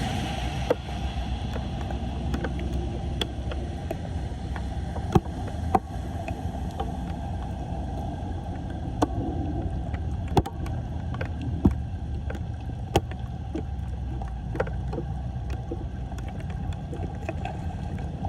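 Floodwater rushing and gurgling into a cleared street storm drain, a steady low rumble, with scattered sharp clicks and knocks.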